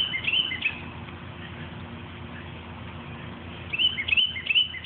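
A small bird singing phrases of short, high chirping notes that slide in pitch: one phrase at the start and another about four seconds in.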